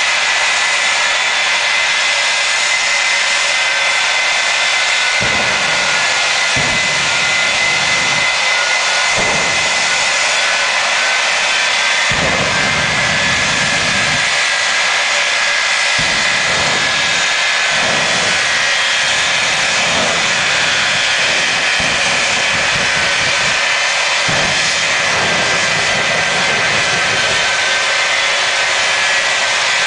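Jet engines of two jet trucks running at high power with afterburners flaming: a loud, steady jet roar with a high whine, and deep low surges that come and go again and again.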